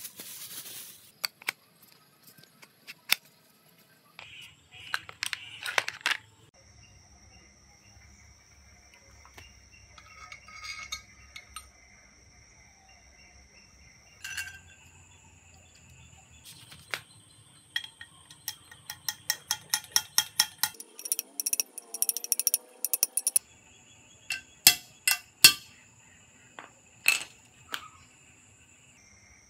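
Plastic packaging crinkling at the start, then scattered sharp clicks and a fast run of small metallic clinks and taps as bicycle fork and headset parts are handled. Steady high thin tones sound faintly behind them.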